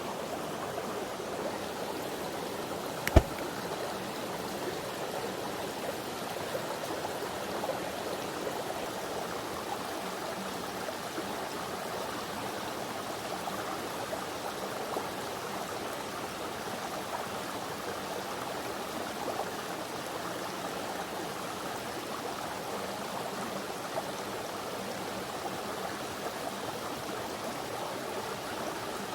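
Valley stream flowing steadily, an even rushing of water over rocks. One sharp click or knock about three seconds in.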